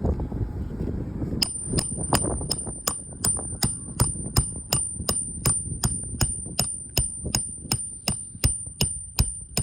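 Hammer driving roofing nails into a replacement shingle: rapid, even blows about three a second, each with a high metallic ring, starting about a second and a half in.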